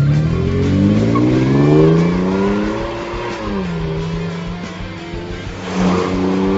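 Exhaust of a Toyota Tacoma's 4.0L V6 under acceleration. The revs climb for nearly three seconds, drop sharply at an upshift, then hold steady, with a brief louder surge near the end.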